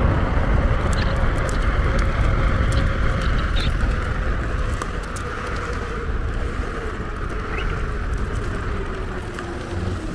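Electric skateboard riding: wheels rumbling over pavement under a motor whine that slowly drops in pitch toward the end as the board slows, with a few light ticks.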